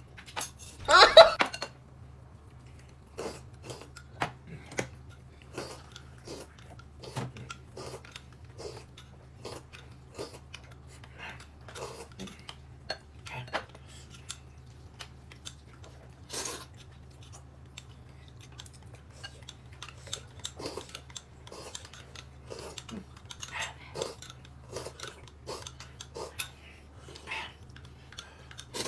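Eating utensils clinking and scraping against bowls and plates during a meal: scattered light clicks throughout, with a louder clatter about a second in.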